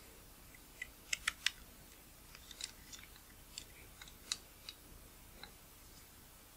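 Small, sharp metallic clicks of a precision screwdriver and tiny screws against a lens's metal bayonet mount: three quick clicks about a second in, then scattered lighter ticks over the next few seconds.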